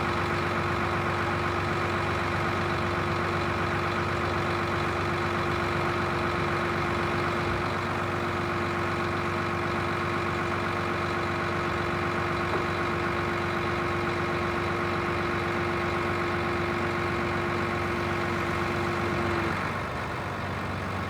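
Truck engine idling steadily, with a steady whine over it that stops a little before the end.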